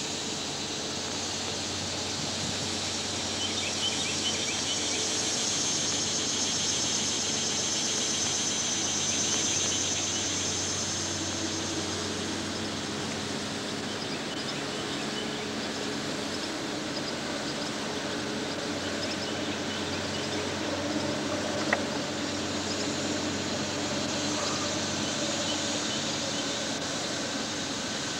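Outdoor river ambience: a steady low rumble under a high, pulsing insect buzz that swells for several seconds in the first half and fades. A single sharp click sounds a little past the middle.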